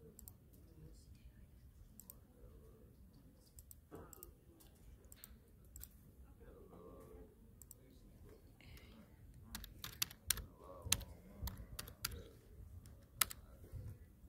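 Typing on a computer keyboard: irregular key clicks, sparse at first and busier and louder in the second half, with faint talking in the background.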